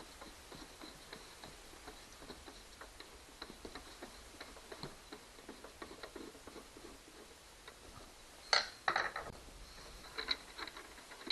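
Hand tool ticking and clicking as a screw on the outboard motor's cover is backed out, with a few louder metal knocks about eight and a half seconds in.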